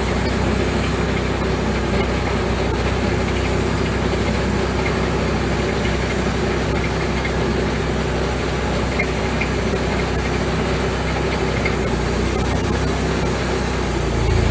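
Wood-Mizer LX150 bandsaw mill running steadily, its band blade sawing a slab off a large, freshly cut green sweetgum log. There is a brief low surge near the end.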